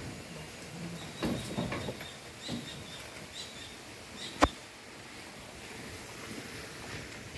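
Steel tire chain being fitted by hand around a truck tire: a few scattered clinks of chain links, then one sharp click, the loudest, about four and a half seconds in, over steady outdoor background noise.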